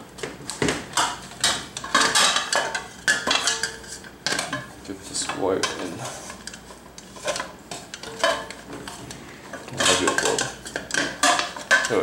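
Alvin swing-arm combination lamp being handled: irregular clinks and knocks from its metal arm and head as it is lifted and moved.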